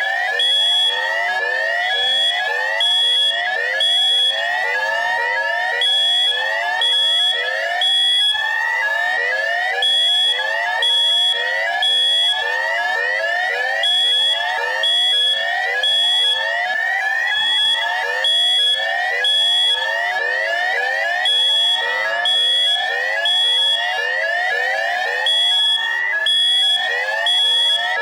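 Electronic alarm sound effect: a loud, unbroken run of fast rising whoops, several a second. Over it, short high steady beeps come in groups of three about a second apart, repeating every four seconds.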